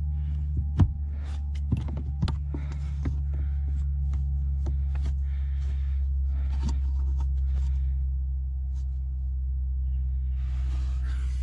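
A steady low hum throughout, over scattered clicks and short scraping sounds of metal heater core pipes being handled and wiped with a cloth, with a brief rustle near the end.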